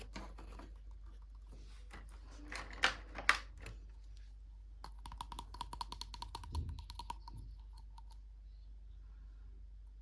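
Small plastic toy pieces being handled and clicked together: scattered taps, two sharp louder snaps about three seconds in, then a quick run of rapid ticking for about three seconds.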